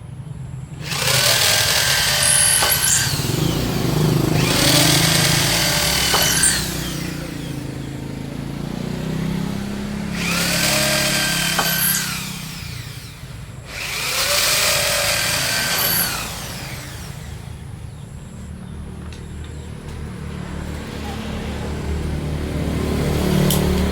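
Handheld power tool cutting into wood in four bursts of about two seconds each; its motor pitch dips under load and recovers each time. A steady low hum runs underneath.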